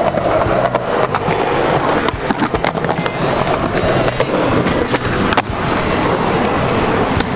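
Skateboard wheels rolling steadily on smooth concrete, with several sharp clacks, the loudest about five and a half seconds in.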